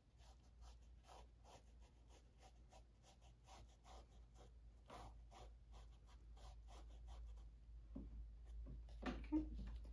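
A paintbrush faintly stroking and dabbing acrylic paint onto the edges of a textured canvas, in quick short strokes of about three or four a second, a little louder near the end.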